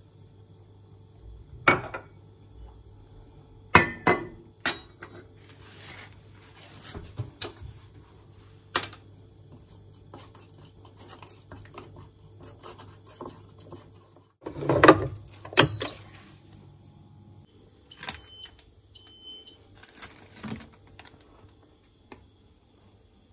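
Household objects being handled: a string of separate knocks and clinks over a low steady hum, loudest in a cluster about two thirds of the way through, with a few short high beeps near the end.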